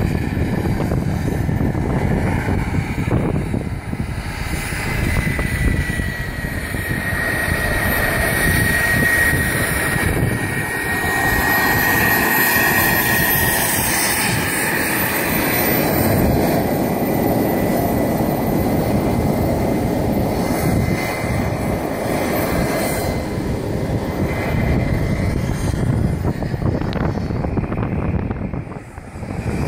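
Wren 80i gas turbine of a radio-controlled jet boat running at about a quarter throttle as the boat speeds past. It makes a steady high whine over a loud rushing noise, and the whine is clearest around the close pass halfway through.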